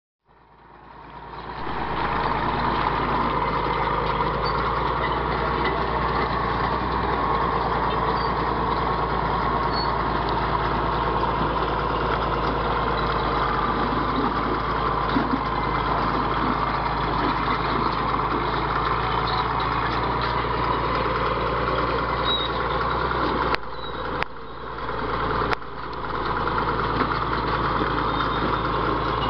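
Crawler bulldozer's diesel engine running steadily, with a few brief dips in level about three-quarters of the way through.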